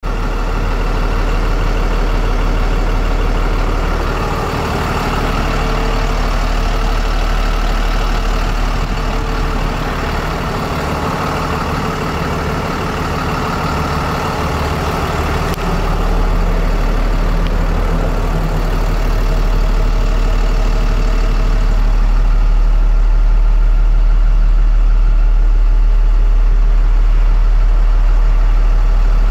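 The truck's 6.7L Cummins ISB inline-six diesel idling steadily, with an even low drone.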